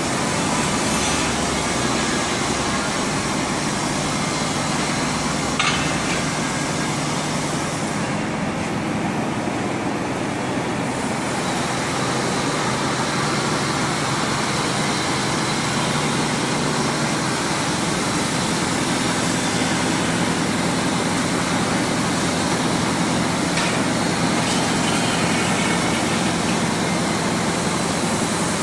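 A 100-ton electro-hydraulic CNC press brake running with a steady hum and hiss, with one short click about six seconds in.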